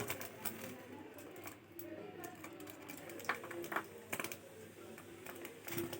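Pet budgies chattering softly, with scattered light clicks and taps.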